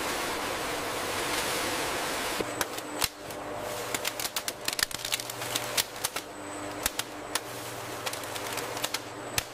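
Softgel capsule encapsulation machinery running: a steady hiss for about two seconds, then rapid, irregular clicking and ticking over a low steady hum.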